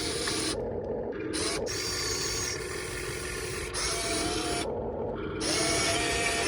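RC excavator's small electric motors and gears whirring as it works, with a thin whine that rises in pitch about four seconds in and again near the end, where it gets louder.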